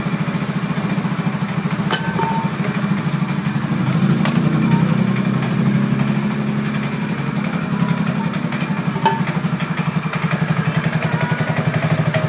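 Yamaha NMAX 155's single-cylinder four-stroke engine, freshly bored up to 63 mm, idling steadily with a fast even pulse. It swells slightly about four seconds in, and a few faint clicks sound over it.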